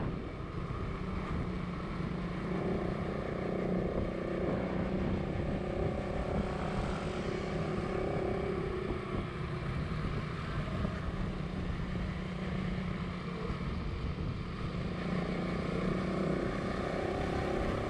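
Motorcycle engine running at a steady cruise, its hum drifting a little in pitch, over a steady rush of road and wind noise.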